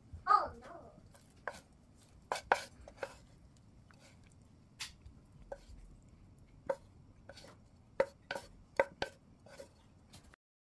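A wooden spatula knocking and scraping against a nonstick frying pan and a porcelain plate as stir-fried shiitake mushrooms are pushed onto the plate: scattered sharp clicks and knocks, with a short wavering squeak near the start.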